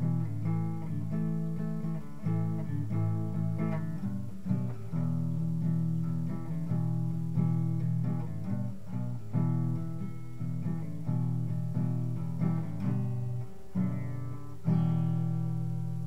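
Guitar music: plucked notes picked in a steady run, with a louder chord struck near the end and left ringing.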